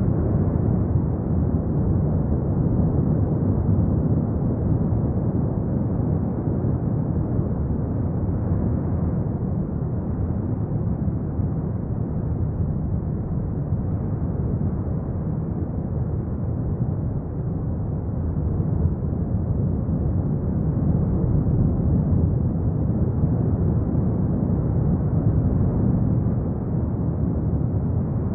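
Erupting volcano giving a deep, steady rumbling roar with no breaks.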